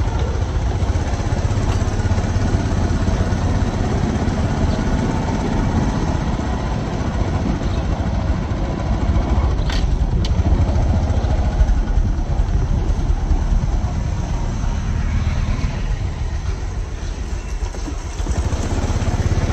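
A motor vehicle engine running steadily with road noise, a low rumble throughout. Two brief sharp clicks come about ten seconds in.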